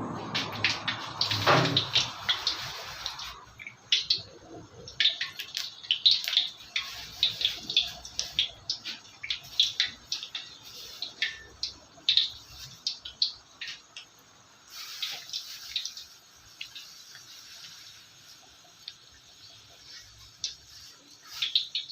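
Kitchen tap running for about the first three seconds, then stops. Irregular clinks and clatters of dishes and utensils follow, as in washing up at a sink, thinning out toward the end.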